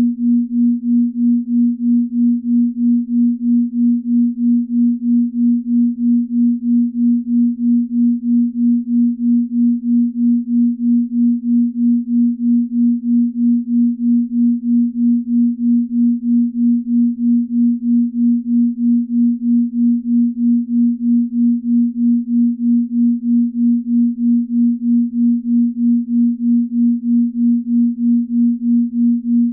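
Binaural-beat tone: a steady pure low tone near 250 Hz, pulsing evenly about two to three times a second as the two slightly detuned tones beat against each other.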